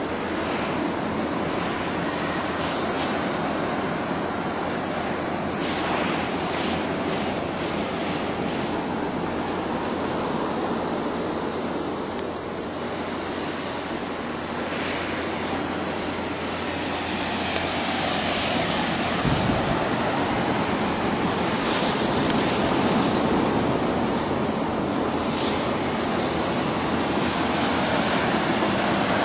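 Steady rushing noise with a few faint knocks, growing a little louder in the second half.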